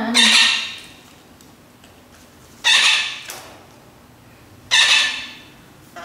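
Young red-breasted parakeets giving harsh squawks: three loud calls, each under a second, about two seconds apart.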